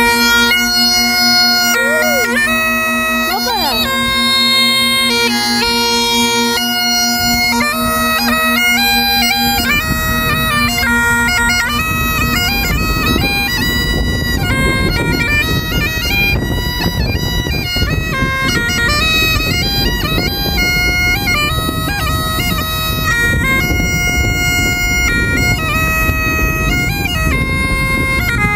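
Bagpipes playing a tune: a steady drone under a chanter melody with quick note changes and ornaments. From about seven seconds in, a low noisy rumble runs underneath.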